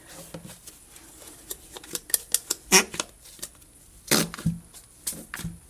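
Plastic slime containers being handled: scattered light clicks and taps as one is put down and the next is picked up and opened, with a sharper click about three seconds in and a few more a little after four seconds.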